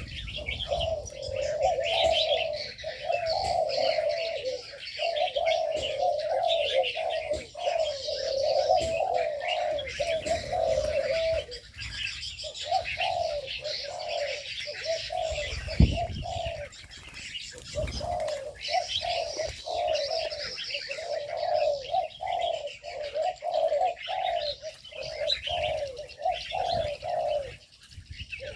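Aviary doves cooing almost without pause, several calls overlapping, with a short break about twelve seconds in, over steady high-pitched chirping from small birds. A single low thump about sixteen seconds in.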